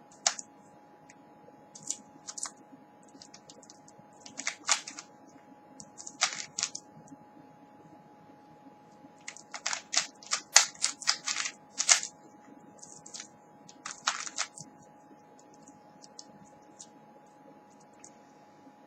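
Plastic Rubik's Cube layers being turned rapidly during a speed-solve, clicking in quick flurries with short pauses between.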